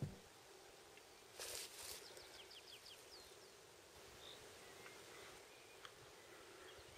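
Quiet open-country ambience with a songbird singing a quick run of short, falling, high notes about two seconds in, then a few faint chirps later. A brief rustling burst of noise comes just before the song.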